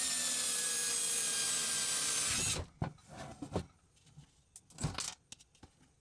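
Power drill with a 3/16-inch bit drilling out a rivet, running with a steady whine. It stops suddenly about two and a half seconds in, followed by a few light clicks and knocks.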